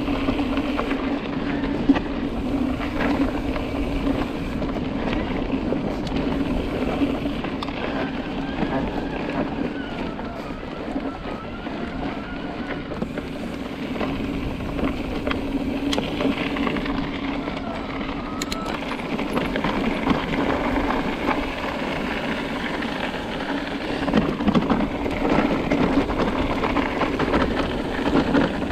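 Electric mountain bike being ridden along a gravel forest trail: a steady motor hum under tyre rumble and wind on the microphone.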